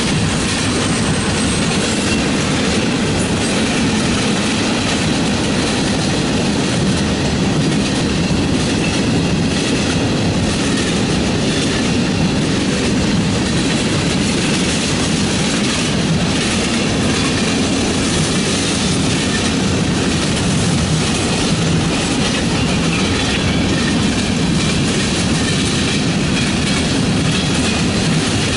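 Freight train of tank cars, gondolas and coil cars rolling past: a steady rumble and clatter of steel wheels on the rails.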